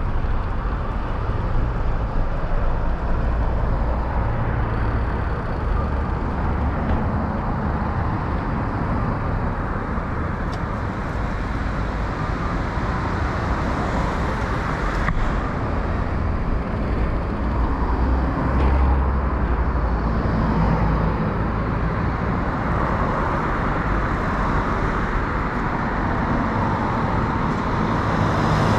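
Road traffic noise on a city street, cars going by, over a steady low rumble.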